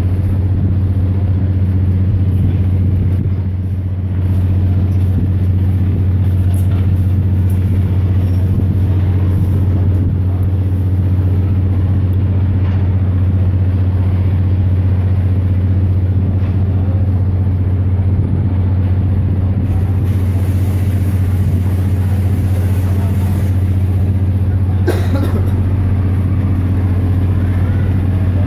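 Boat engine running steadily, a low, even drone. A single sharp knock sounds about three quarters of the way through.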